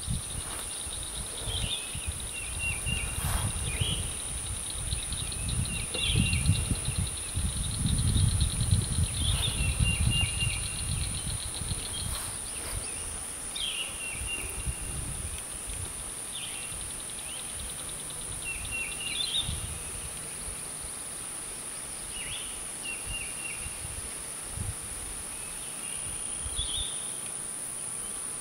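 Outdoor ambience of a steady, high-pitched insect drone, with a bird repeating a short song phrase every two to three seconds. A low rumble swells and fades during the first ten seconds.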